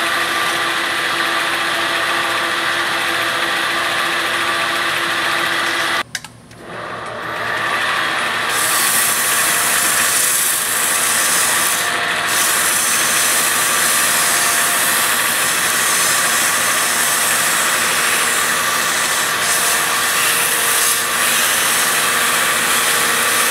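Monarch 10EE lathe running with a turned steel shaft spinning as a flat file is drawn across it. About six seconds in the sound drops out briefly, then abrasive cloth rubbing on the spinning shaft adds a steady bright hiss over the running lathe.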